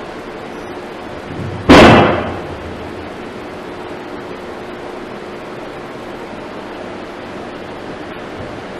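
A single loud bang a little under two seconds in, dying away over about half a second, over a steady background hiss.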